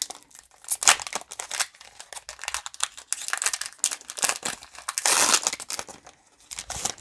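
Foil Pokémon booster pack wrapper being crinkled and torn open, in irregular rustling bursts, the loudest about five seconds in.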